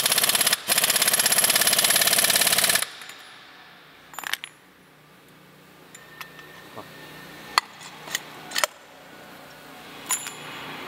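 Pneumatic impact wrench rattling on the wheel's axle nut, stopping abruptly about three seconds in. A few light metal clinks follow.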